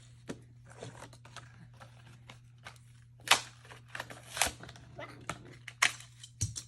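Toy packaging being worked open by hand: irregular crackling, tearing and clicking of cardboard and plastic. The loudest rips come about three, four and a half and six seconds in.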